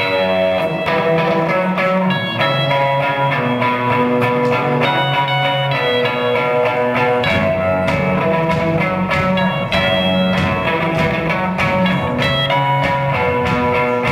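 Live band playing an instrumental guitar-led passage: picked guitar notes ring out over sustained low notes, steady and loud, with no singing.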